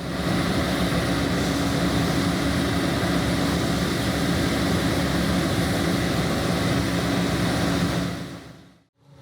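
Heavy diesel engine of harvest machinery running steadily under load, a constant hum with a steady low tone, fading out near the end.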